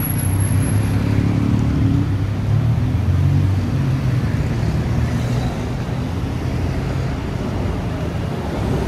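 Traffic on a busy city street: vehicle engines running with a steady low hum over continuous road noise.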